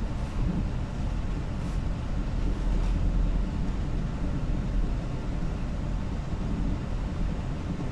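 Steady low rumble of wind and rough sea around a bulk carrier under way in heavy weather, with no clear pitch or rhythm.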